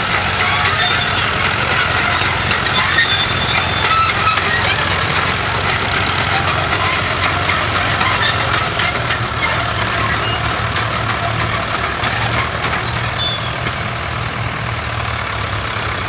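Fordson Major County crawler tractor's engine running steadily under load as it pulls a plough.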